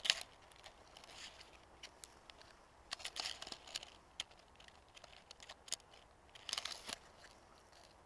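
Pine twigs and needles brushing and crackling close to the microphone, with dry leaves rustling, in short spells: a sharp crackle at the very start, then longer rustles about three seconds in and again between six and seven seconds.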